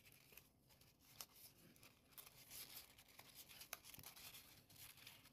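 Faint rustling and crinkling of folded origami paper as kusudama units are handled and slotted together, with a few small crisp clicks of paper edges.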